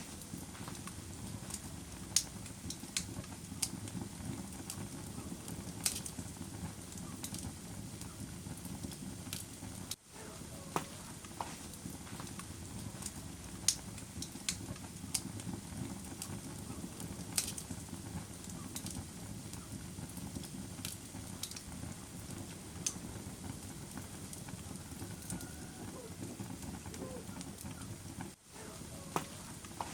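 Wood fire in a fireplace crackling: irregular sharp pops and snaps over a steady low rumble of the flames, with a brief dip in sound about ten seconds in.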